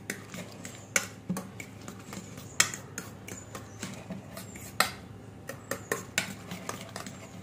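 Fork whisking an egg mixture in a stainless steel bowl, its tines clinking and scraping against the steel in quick, irregular clicks.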